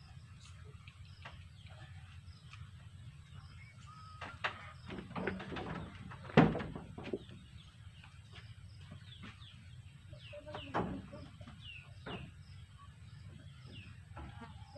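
Chickens foraging close by, with clucks and short chirping calls, over a steady low background rumble. A single sharp knock about six and a half seconds in is the loudest sound.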